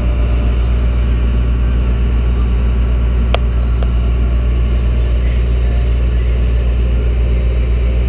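Fishing boat under way: its engine runs with a steady low drone, with a haze of water and wind noise over it. A single sharp click comes about three and a half seconds in.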